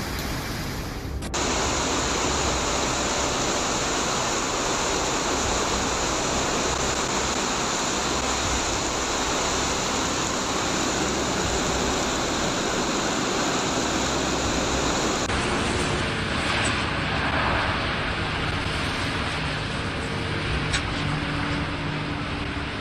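Heavy rain pelting down on parked cars, a dense steady hiss that starts abruptly about a second in. Later it gives way to storm surf washing over rocks, a rushing roar with a couple of sharp cracks.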